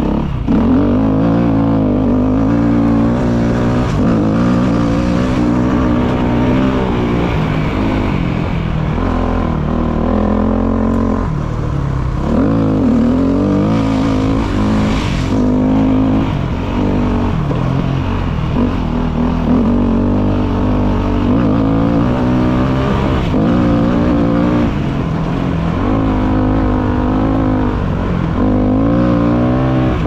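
KTM motorcycle engine running under way, its pitch rising and falling over and over with the throttle.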